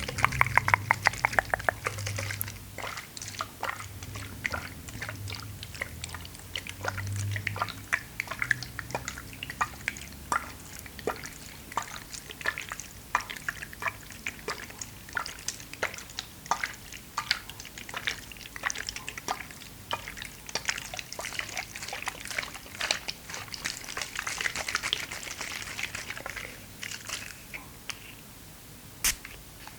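Water being poured and dripped for ASMR: a quick run of trickling clicks at the start, then irregular drips and small plops.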